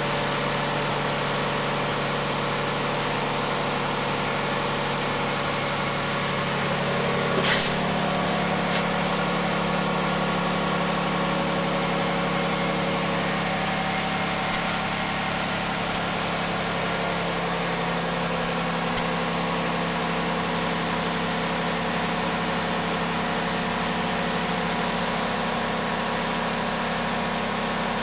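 2000 Lexus RX 300's 3.0-litre V6 idling steadily through an aftermarket Delta dual exhaust with the factory (OEM) resonator, heard at the tailpipes. A single short click comes about seven and a half seconds in.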